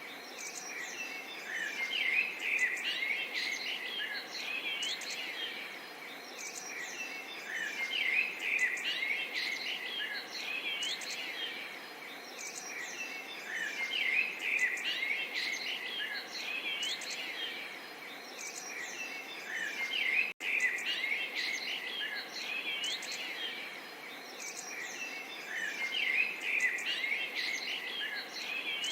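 Many small songbirds chirping and trilling in a dense chorus, swelling about every six seconds, over a faint steady murmur of water. The sound cuts out for a moment about twenty seconds in.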